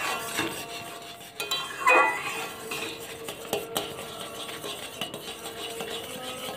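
A metal spoon stirring thick, bubbling hog plum chutney in a kadai, scraping along the pan with several sharp clinks of metal on metal.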